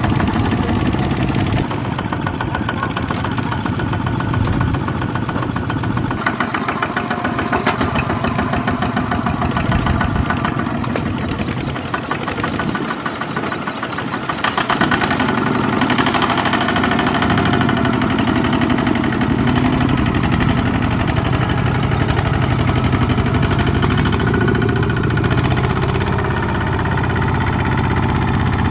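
Tractor engine running under load, dipping briefly about halfway through and then coming back louder and steady.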